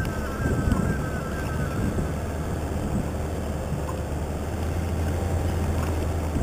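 Toyota Hilux 4x4 driving over a rough off-road track: a steady low engine drone under a rumble of tyres and vehicle noise, with a few faint knocks.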